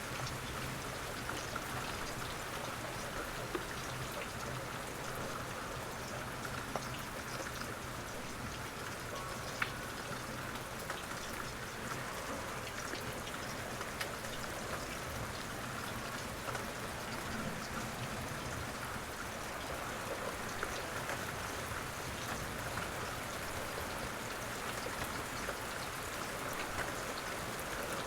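Steady rain falling, an even patter with scattered louder single drop ticks.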